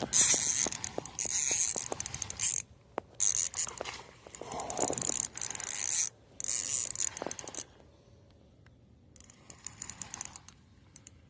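Fishing reel cranked with a fast ticking whir while a hooked largemouth bass is reeled in, in several runs with short pauses between them and stopping about eight seconds in, followed by a few faint ticks.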